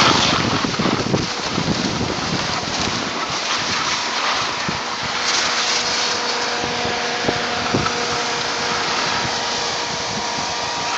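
Steady rushing noise of skiing downhill: wind buffeting the microphone and skis sliding over packed snow, with a faint steady hum underneath from a few seconds in.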